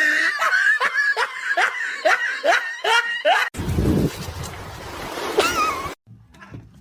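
A person laughing in a quick run of short bursts, two or three a second, for the first three and a half seconds. Then comes a stretch of noise with a low rumble and a brief wavering high-pitched cry, and the sound cuts off suddenly near the end.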